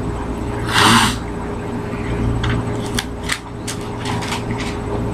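Paper pages of a Bible being handled and leafed through: a short hissing rustle about a second in, then a string of light crackles and clicks, over a steady low electrical hum.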